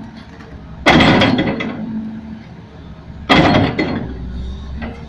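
Caterpillar excavator's bucket being jerked to shake out stuck mud: two heavy metallic clanks about two and a half seconds apart, each with a rattle that fades over about a second, over the steady low running of the engine.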